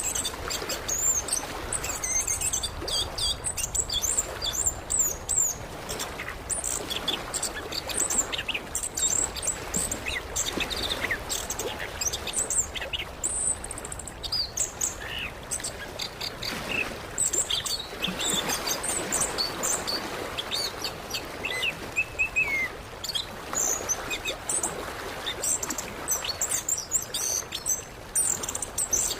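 Orange-headed thrush singing a fast, varied song of short chirps and whistles, over a steady background hiss.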